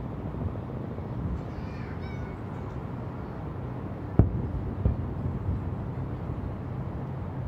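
Distant aerial fireworks: a steady low rumble of rolling booms, with one sharp bang about four seconds in and a weaker one just after.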